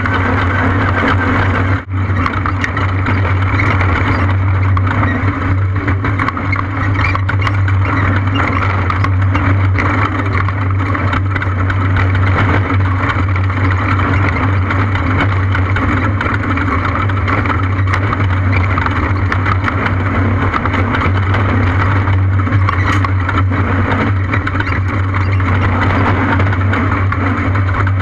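Off-road race vehicle's engine running at a steady pitch under load, with a rushing noise over it and a brief dip about two seconds in.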